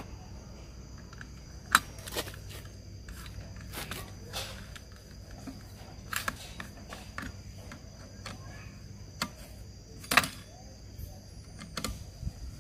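Scattered clicks and knocks of parts and tools being handled while a Honda GX50 brush cutter engine's carburetor and intake are fitted back on, with two sharper knocks about two seconds in and near ten seconds, over a steady low hum.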